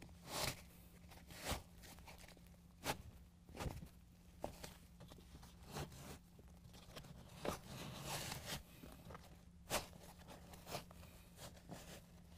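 Faint, irregular rustling and scraping of seat-cover fabric and straps being handled under a folded-up rear seat, in short scattered bursts.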